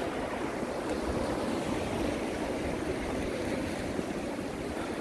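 Sea waves washing steadily against a rocky shore, with wind rumbling on the microphone.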